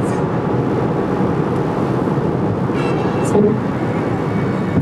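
Steady road and engine noise inside a moving car's cabin, with a brief louder moment about three and a half seconds in.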